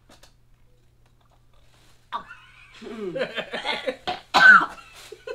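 A boy coughing on a mouthful of Oreo with a Parmesan cheese filling, with a loud, sharp cough a little past four seconds in, while another person laughs.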